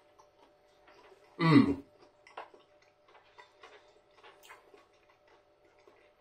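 A person chewing a mouthful of food: many small, soft mouth clicks, with one brief louder voiced sound about one and a half seconds in. A faint steady hum runs underneath.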